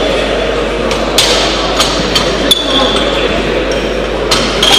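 Weight plates and collars being loaded onto a barbell's steel sleeve: a few sharp metallic clinks and knocks spread through, some ringing briefly.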